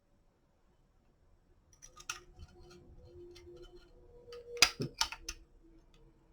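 Light clicks and taps from small metal parts and screws being handled while a quad rail handguard is fitted. A few sharper clicks come close together about four to five seconds in.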